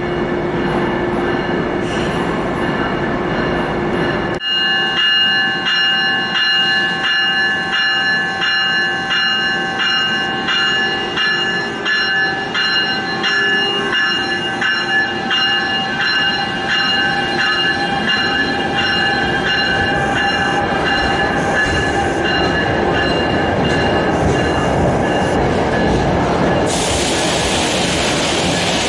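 NJ Transit commuter train running slowly alongside the platform, its wheels squealing against the rails in several high steady tones that pulse over the rumble of the cars. A loud hiss rises near the end.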